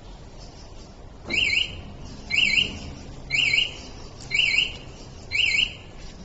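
Motorcycle alarm siren sounding five short electronic chirps, about one a second, each a quick up-down-up warble.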